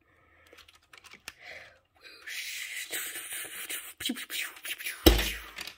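A person making whooshing spaceship sound effects with the mouth while swooshing a toy ship: a breathy hiss for about three seconds, ending in a loud puff of breath on the microphone near the end.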